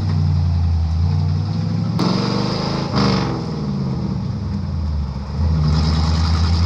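Old Chevrolet car's engine heard from inside the cabin, pulling away and being shifted: a sharp click about two seconds in as the engine note changes, then a brief dip and the engine pulling again a little after five seconds. The gear changes skip second, which is torn up, going from first straight to third.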